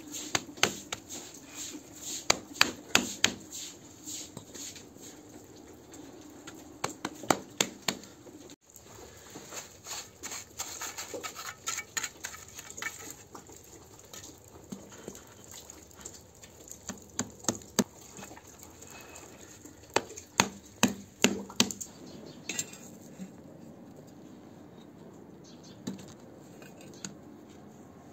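Bricklaying into wet cement mortar: a steel trowel scraping and tapping, with bricks knocked and set into place. The taps and knocks come in quick clusters separated by quieter stretches.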